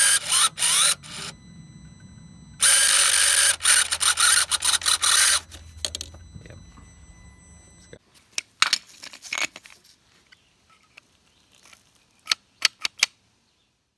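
Electric turbo boost actuator of a Mercedes OM642 3.0 diesel whirring in two bursts, about a second and then about three seconds long, as its small motor drives the vanes once plugged in. A few sharp clicks follow near the end.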